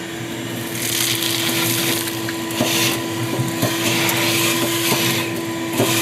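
Shop vac running with a steady hum, sucking ash and pellet dust out of a pellet grill's fire pot so the igniter rod is not buried. The rush of air swells and fades as the nozzle moves, with a few sharp ticks as bits of debris rattle up the hose.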